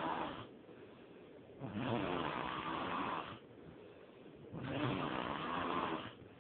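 A person snoring: one long snore about every three seconds, the tail of one at the start and then two more, each about a second and a half long, with quieter gaps between.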